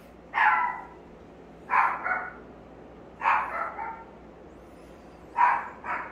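A dog barking in four short bouts, the later bouts of two or three quick barks each.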